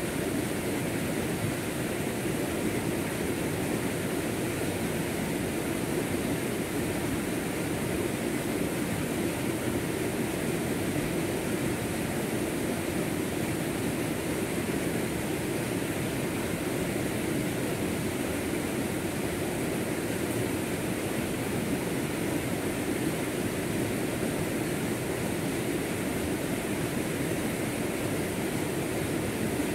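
Fast-flowing rocky stream rushing over boulders and small cascades: a steady, even rush of water.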